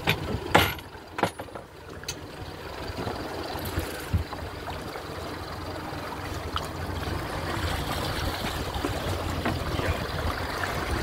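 Boat engine idling with a steady low hum under a hiss of water that slowly grows louder. A few sharp knocks come in the first second or so.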